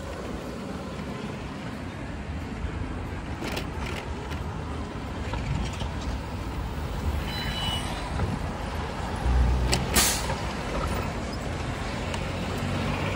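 City street traffic heard from a moving e-bike, with wind rumbling on the microphone. A loud, short burst of hiss comes about ten seconds in.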